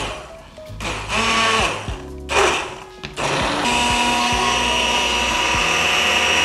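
Handheld immersion blender motor whirring as it blends a glass jug of coffee, almond milk and banana. It runs in short bursts at first, then is held on steadily from about halfway, its whine stepping up slightly in pitch once under way.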